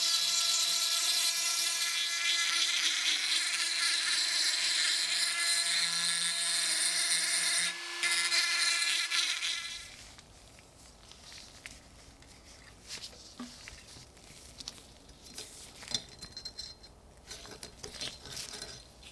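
Handheld rotary tool with a cone-shaped grinding bit whining at high speed as it grinds rust off a pickaxe's iron, with a short dip just before it stops about halfway through. After it stops, faint scratching and small clicks as rust is picked and scraped away by hand.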